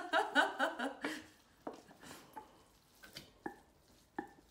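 Wooden spoon and stainless steel pot knocking and scraping as thick risotto is scooped out into a ceramic bowl: half a dozen sharp, separate knocks spread over a few seconds, with a soft squish of the rice.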